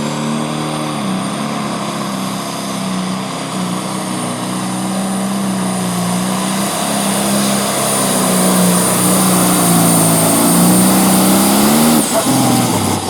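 Turbocharged diesel engine of a pro stock pulling tractor running flat out under load as it drags the weight-transfer sled, its pitch wavering with a high thin whistle over it. About twelve seconds in the engine note drops sharply as the throttle comes off at the end of the pull.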